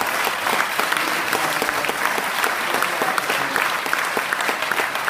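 Audience applauding: many hands clapping together in a steady, loud ovation.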